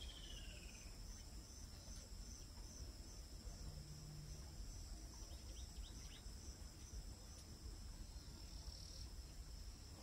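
Crickets trilling faintly and steadily, a high-pitched pulsing chirr, with a few brief faint chirps near the start.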